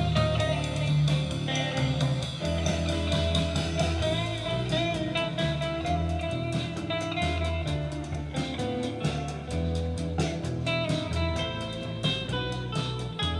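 Background music led by guitar, with bass and a steady beat.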